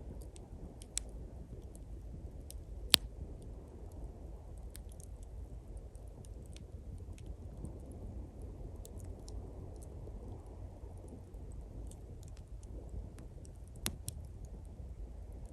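Small campfire of pine twigs crackling with many light ticks, and two sharp loud pops, one about three seconds in and one near the end. Beneath it runs a steady low rumble of waves on the shore.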